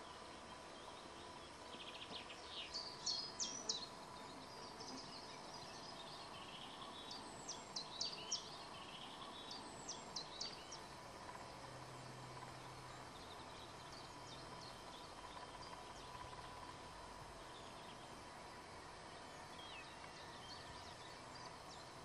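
A songbird singing short phrases of quick, high notes, three phrases a few seconds apart and a faint one near the end, over a steady faint outdoor hiss. A faint low hum comes in about halfway through.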